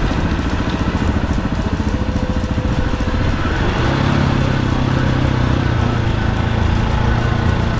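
KTM 690 Enduro R's single-cylinder engine running as the bike is ridden. Its firing pulses chug for the first few seconds, then settle into a smoother, steadier note about halfway through.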